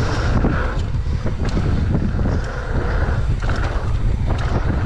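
Wind buffeting the microphone and mountain bike tyres rolling fast over a hard-packed dirt trail, with frequent short clattering knocks from the bike over bumps.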